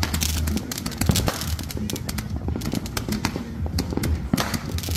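Consumer fireworks going off: a ground fountain spraying sparks and a rapid, continuous stream of sharp pops and crackles.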